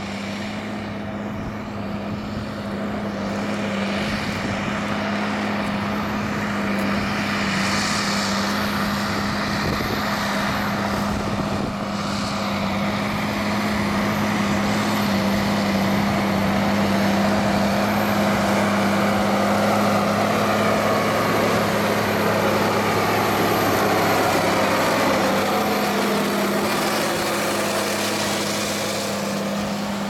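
Case IH Magnum 335 tractor's diesel engine running steadily under load as it pulls a reversible plough. It grows louder as the tractor approaches, and its pitch falls as it passes close by near the end.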